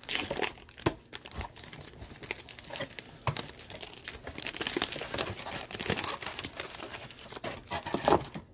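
Foil wrapper of a 2018 Panini Prizm football card pack being torn open and crinkled by hand: an irregular run of crackles and rustles.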